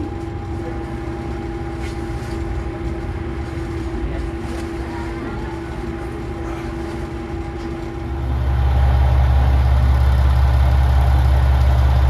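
KiHa 120 single-car diesel railcar standing at a station with its engine idling. A steady low hum with a faint constant whine is heard first. About two-thirds in it gives way to a much louder, steady low engine drone.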